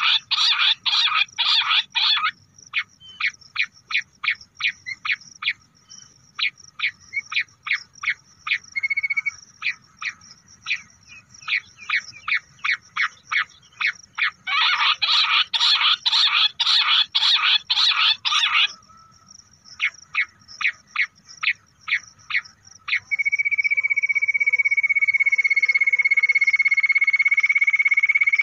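Bush quail calls: a long series of short, sharp, high notes, about two to three a second, thickening into dense loud choruses at the start and from about 15 to 19 s. From about 23 s they turn into one continuous high trilling whistle.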